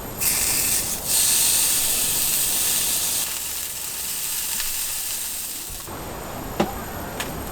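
Meat sizzling on a hot camping mini griddle: a loud, even hiss that starts suddenly and cuts off sharply about six seconds in.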